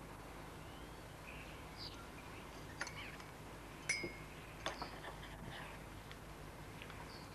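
A teaspoon clinks against a china teacup a few times as tea is stirred; the loudest clink rings briefly. Faint short bird chirps come and go.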